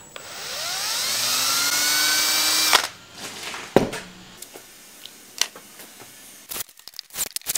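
Cordless drill running for nearly three seconds, its motor whine rising in pitch and then holding before it stops abruptly. Afterward come a sharp knock and scattered clicks and taps of tools being handled.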